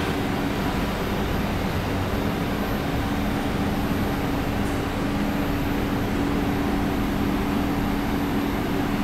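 Steady hum and hiss inside a C751B MRT train car standing at the platform, with two low steady tones from its onboard equipment.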